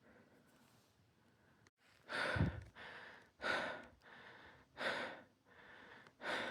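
A hiker's heavy, labouring breathing from climbing through deep snow. From about two seconds in it is a steady rhythm of loud breaths roughly every second and a half, with quieter breaths in between.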